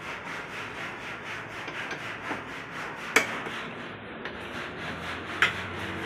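Hand ratchet wrench clicking in a quick, even rhythm as the bolts holding the cooling fan of a Honda Vezel hybrid battery pack are undone, with two sharper knocks about three and five and a half seconds in.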